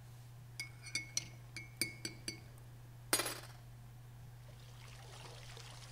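Glass clinking in a quick run of light clinks over the first two seconds or so, then a short splash about three seconds in and a faint hiss of liquid pouring toward the end, over a low steady hum.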